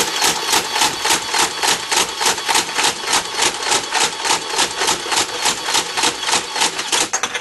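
Nerf N-Strike Vulcan EBF-25 belt-fed dart blaster firing full-auto on its electric motor: a steady motor whine under a rapid, even clatter of about three shots a second. It stops near the end as the 25-dart belt runs out.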